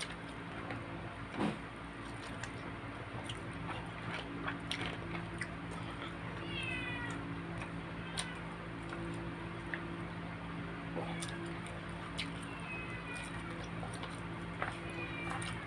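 A cat meowing three times in short, falling calls, over the clicks and smacks of someone eating with their hands and a steady low hum.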